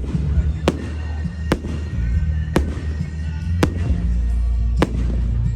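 Firework shells bursting in sharp bangs, five of them at roughly one-second intervals, over music with a heavy bass.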